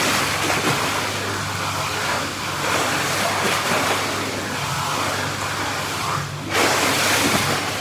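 Churning, bubbling water of an indoor pool with its jets running: a steady rushing hiss over a low hum. It breaks off briefly about six and a half seconds in.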